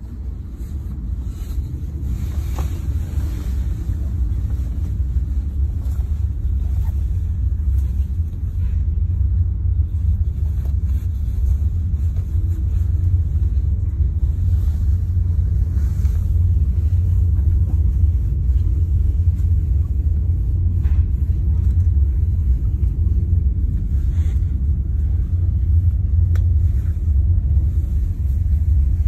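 Passenger train running, a steady low rumble that builds over the first few seconds and then holds, with faint scattered clicks.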